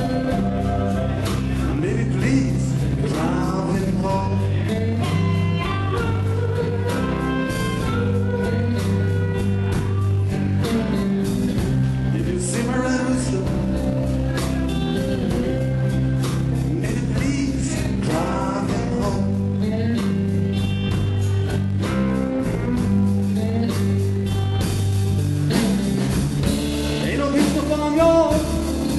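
Blues band playing live, with electric guitar, bass and drums keeping a steady beat.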